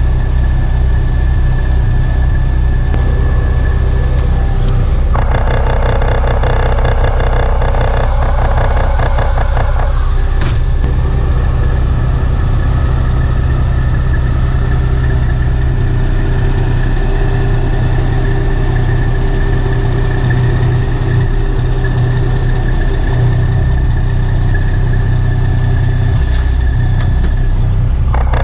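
Diesel engines running steadily close by: a semi truck idling with a skid steer loader working beside it. From about five to ten seconds in, a harsher rattling stretch rises over the steady hum.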